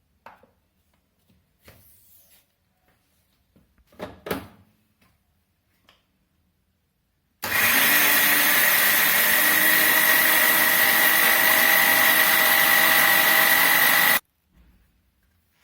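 A few faint knocks and clicks, then an electric mixer grinder (mixie) starts suddenly about seven seconds in and runs steadily at full speed with a high whine, grinding coconut chutney: grated coconut, green chillies and water. It stops abruptly about seven seconds later.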